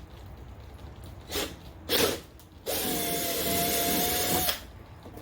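Cordless power drill running for about two seconds with a steady whine, after two brief noisy bursts, while boring spoiler mounting holes with a 25/64 bit.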